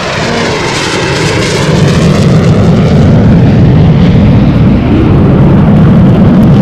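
JF-17 Thunder fighter's single turbofan engine passing in a low flyby: a continuous jet roar whose pitch sweeps as the aircraft goes by, growing louder after about two seconds.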